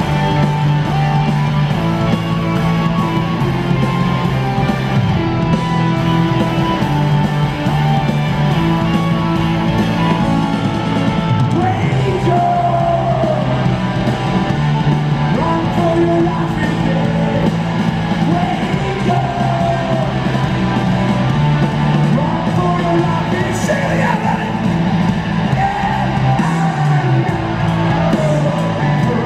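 Live rock band playing loud distorted electric guitars, bass and drums, with wavering voices, singing or yelling, over the music from about eleven seconds in.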